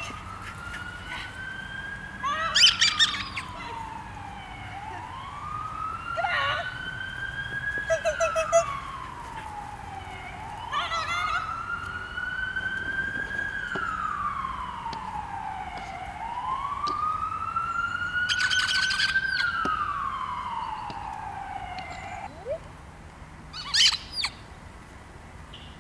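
A siren wailing, its pitch slowly rising and then falling about every five and a half seconds, four times over, then stopping near the end. Several short, sharp sounds stand out over it, the loudest of them a few seconds in and near the end.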